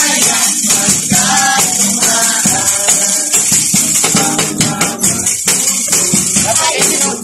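Group of people singing together to acoustic guitars, with a steady high rattling percussion keeping the beat.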